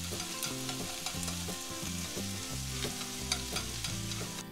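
Sliced onion and scallions sizzling in hot oil in a nonstick frying pan as they are briefly stir-fried, with light clicks of chopsticks against the pan.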